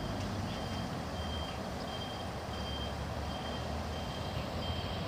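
A high-pitched electronic warning beeper repeating steadily, about three beeps every two seconds, over a low background rumble.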